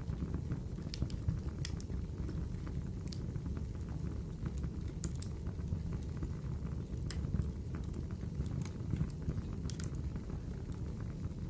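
Wood fire burning in a fireplace: a steady low rumble with scattered, irregular sharp crackles and pops.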